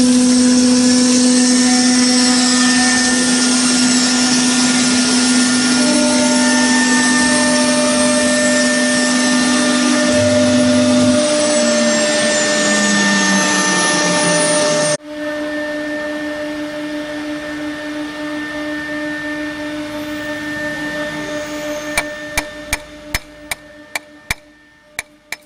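A CNC router's 6 kW water-cooled spindle milling through 3 mm aluminium sheet: a loud steady whine under harsh cutting noise, the tone sliding down in pitch shortly before the sound cuts off abruptly a little over halfway through. A quieter steady hum follows, fading, with a run of sharp clicks near the end.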